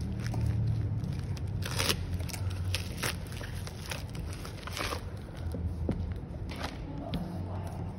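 Plastic packaging crinkling and crackling as it is handled and a boxed phone screen assembly is slid out of its clear plastic bag, with scattered sharp crackles, the loudest about two seconds in.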